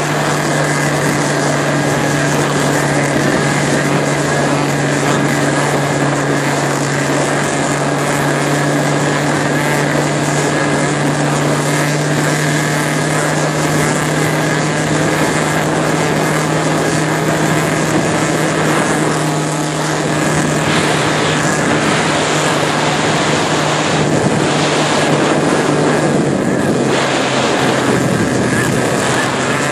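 Motorboat engine running steadily at cruising speed, with a low hum under water rushing past the hull. The engine note drops slightly near the end.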